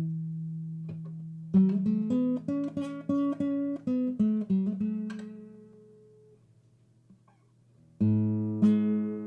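Background acoustic guitar music: a held note, then a quick run of plucked notes that dies away, and a new strummed chord near the end.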